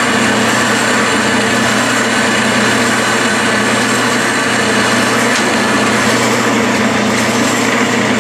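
Metal lathe running steadily under power, its motor and gearing humming evenly as it turns a chuck backing plate while a tool cuts the internal thread in the bore.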